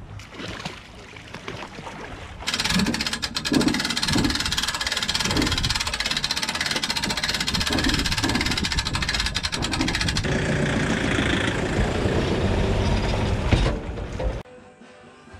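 Boat trailer winch ratcheting in a rapid run of clicks as the aluminium tinny is cranked onto its trailer, with a few dull knocks. Then a vehicle towing the trailer up the ramp, a steady rumble that stops shortly before the end.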